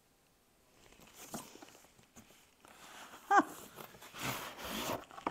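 Cardboard gift box being handled and opened: light scrapes and rustling of cardboard and paper, with one brief squeak a little past three seconds in, the loudest sound.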